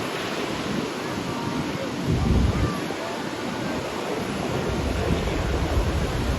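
Sea waves washing onto a sandy beach in a steady rush, with gusts of wind buffeting the microphone about two seconds in and again from about five seconds on.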